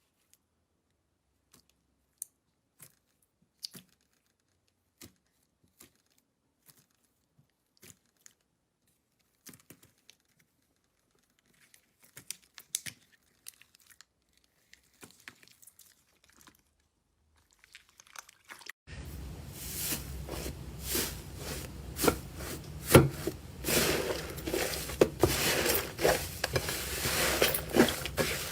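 Slime being handled, poked and squeezed, giving off scattered sticky clicks and small pops. About two-thirds of the way through, a steady hiss starts suddenly under much denser crackling and popping.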